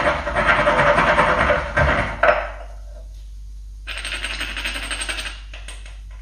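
Whole nutmeg grated on a small metal grater: quick rasping strokes for about two seconds, ending in a knock. About four seconds in comes a second, shorter spell of scraping.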